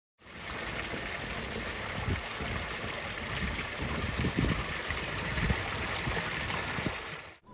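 Steady wash of water, small sea waves lapping at the shore, with a few soft low thumps.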